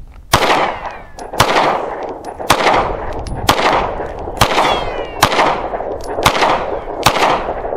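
9mm semi-automatic pistol firing Federal Syntech polymer-jacketed range ammunition: eight shots at about one a second, each followed by a short fading echo.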